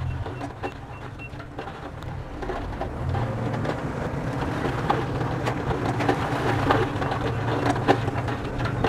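Bulldozer's diesel engine running steadily, with a reversing alarm beeping for about the first second. After that, a growing clatter of crackles and knocks sets in as the machine works the soil.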